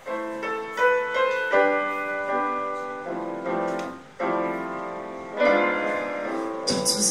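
Piano playing a slow introduction of held chords, a new chord struck every second or so, as the opening of a ballad before the voice comes in.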